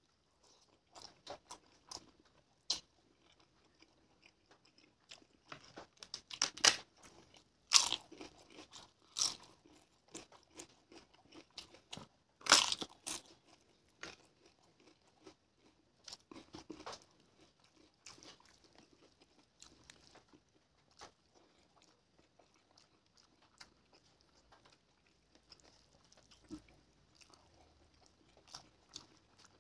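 Close-up chewing and biting with sharp crunches of crisp papad, the loudest crunches bunched in the first half, then softer chewing and wet mouth sounds.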